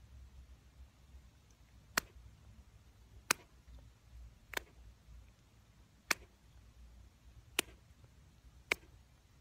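A cat chewing and tugging at an elastic hair tie on a person's wrist: six sharp clicks, irregularly about a second and a half apart, over a faint low hum.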